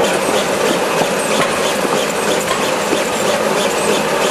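HRZD-W450 chocolate fold-wrapping machine running, a steady mechanical clatter with a quick, regular ticking of about four ticks a second.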